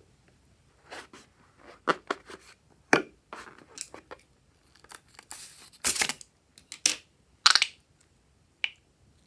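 A string of irregular sharp snaps, crackles and short tearing noises from hand-made slime and balloons being handled, loudest around six and seven and a half seconds in.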